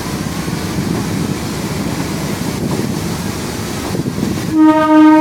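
EMU train rolling into the station past the platform, a steady running noise with wind on the microphone. About four and a half seconds in, a loud train horn starts and holds one steady note.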